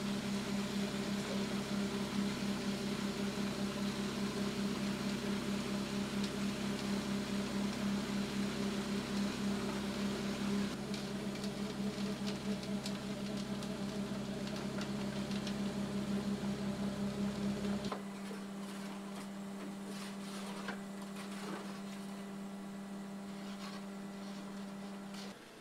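A volumetric concrete mixer truck running while it discharges concrete down its chute, a loud, steady, pulsing mechanical hum. About two-thirds of the way through, the deep part of the hum drops away and a lighter steady hum continues, heard through a window.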